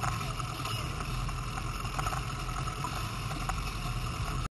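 Force 120 outboard motor running steadily, a constant low hum under an even wash of noise.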